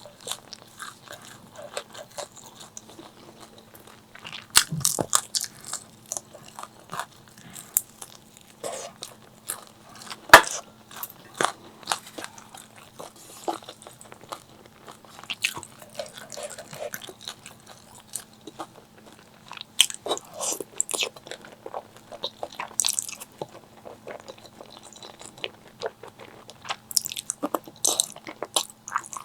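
Close-miked eating: irregular crunchy bites and chewing, with a sharp crunch about ten seconds in.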